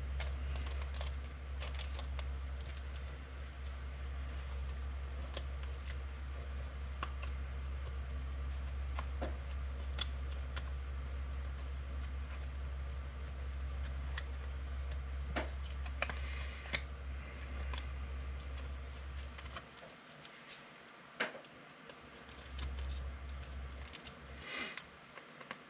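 Scattered light clicks and taps, a few every second or so, over a steady low hum that drops out for about two seconds near the end.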